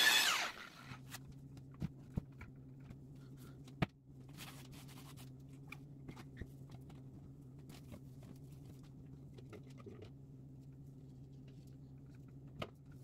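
An electric rotary polisher, used for buffing plexiglass, is switched off and winds down within the first half second. What follows is quiet: a steady low electrical hum, with scattered small taps and clicks as a hand touches and wipes the plexiglass sheet.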